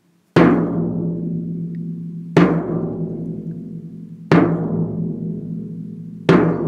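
Cinematic intro music: four deep drum hits about two seconds apart, each ringing out and fading slowly.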